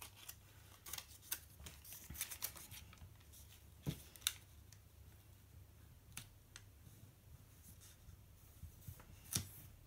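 Faint paper handling: a paper sticker box being positioned and pressed onto a planner page, giving scattered soft rustles and clicks, the sharpest about four seconds in and again near the end.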